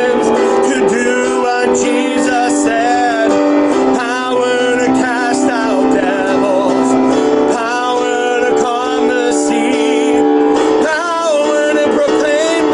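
A man singing a worship song over a steady instrumental accompaniment.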